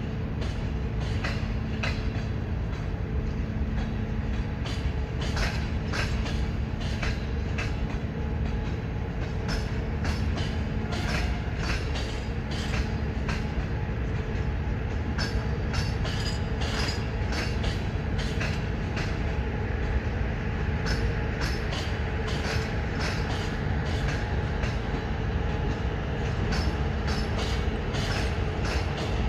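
Train rolling past on the tracks: a steady rumble of wheels on rails with a run of sharp clicks over rail joints and points, over a steady low hum.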